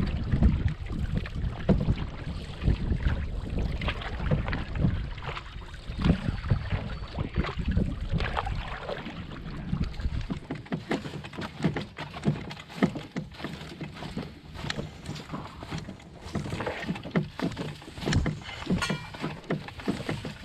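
Canoe being paddled: paddle strokes splashing in the water and knocking against the hull. Wind buffets the microphone for about the first half.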